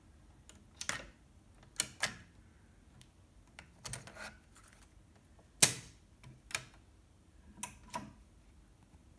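Mechanical clicks and clacks of a 1978–79 Dual C 819 cassette deck being worked by hand: the eject key pressed and the cassette door opening, the cassette handled in the door, the door shut with the loudest clack about halfway through, and the power button pressed near the end.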